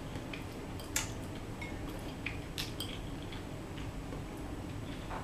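Metal fork clicking and scraping against a white ceramic bowl while twirling fettuccine alfredo: a scatter of light, irregular clicks, the sharpest about a second in, over a steady faint room hum.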